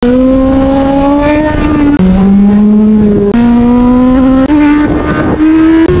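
Motorcycle engine running under throttle on the move, heard from onboard with wind rush underneath. Its pitch climbs steadily and then drops or jumps abruptly several times, with a short click at some of the changes.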